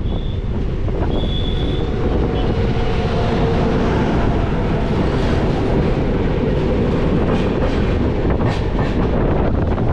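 Passenger train running along the track, heard from on board: a steady rumble of wheels on rails, with brief high wheel squeals near the start and about a second in. From about seven seconds in, the wheels click rapidly over rail joints.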